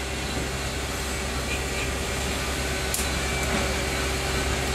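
A steady low machine hum with a constant pitch, and a faint click about three seconds in.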